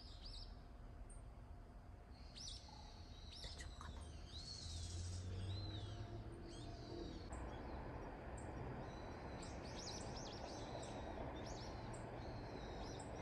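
Wild birds outside chirping and calling in short rising and falling notes, over a steady outdoor hiss that gets louder about seven seconds in.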